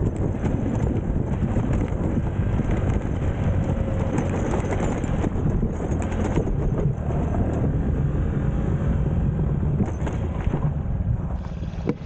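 Small Honda four-stroke single-cylinder motorbike engine running steadily under way on a rough dirt road, with frequent jolts and rattles from the ride.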